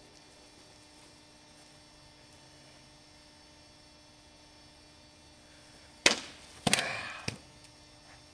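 Sword blades cutting through targets on stands: three sharp cracks within about a second and a quarter, the middle one followed by a brief rough clatter. A faint steady hum runs underneath.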